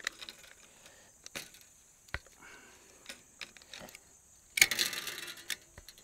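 Gripple Torq tensioning tool being worked, clicking as it ratchets 12.5-gauge high-tensile brace wire through a Gripple to tighten it. Scattered single clicks, then a louder burst of noise lasting about a second, around four and a half seconds in.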